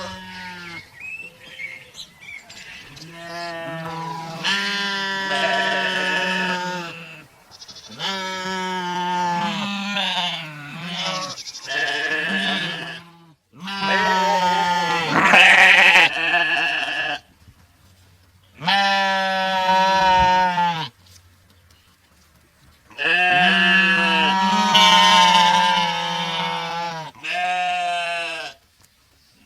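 Sheep bleating: a series of about seven long, drawn-out bleats, each a second to several seconds long, with short pauses between them.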